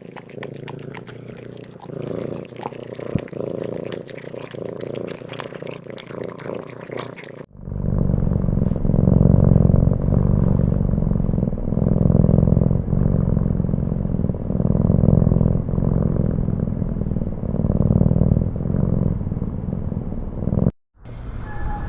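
Two clips joined together. The first is a softer stretch with many small clicks. From about seven and a half seconds a cat purrs loudly and low, in steady waves about once a second, until it cuts off near the end.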